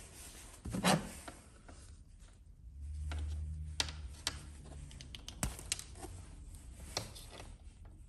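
Diagonal wire cutters working a length of red electrical wire: rubbing and handling with several sharp clicks of the cutter jaws. A knock about a second in, and a low hum for about two seconds in the middle.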